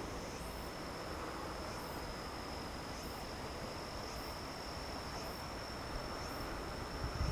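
A chorus of autumn insects calling. One keeps up an unbroken high trill, while another gives short rising calls about once a second. A few low thuds come just before the end.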